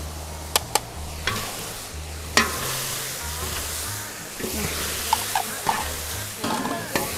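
A metal ladle stirring and scraping chicken and duck pieces in a large hot pan. It clicks against the pan twice early on and gives a louder knock a little over two seconds in, after which the meat sizzles steadily as it fries.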